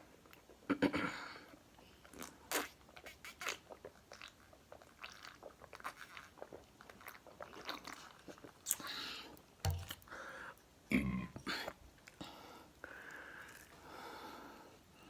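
Close-miked chewing and biting of chicken wings: a run of irregular wet mouth clicks and bites.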